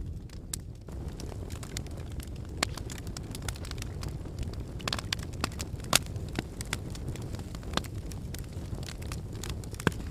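Wood fire burning in a fireplace: a steady low rumble of flames with irregular crackles and sharp pops, the loudest pop about six seconds in.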